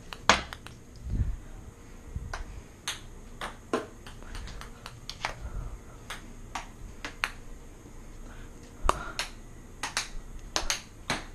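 Ping-pong ball rally: a string of sharp, irregular clicks as the ball is struck by paddles and bounces off the floor and cabinets, with one dull thud about a second in.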